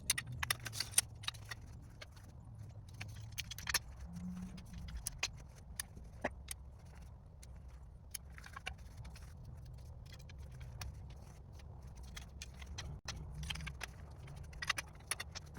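Scattered light clicks and metallic clinks, irregular and spread through the whole stretch, as a Cabela's Northern Flight A-frame hunting blind's frame is handled and taken apart, over a low steady rumble.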